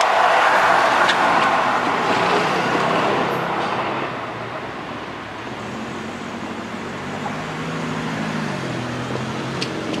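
Seibu 10000 series (New Red Arrow) limited express running away down the track, its wheel and running noise fading over the first four seconds. A lower engine hum then rises and drops in pitch near the end.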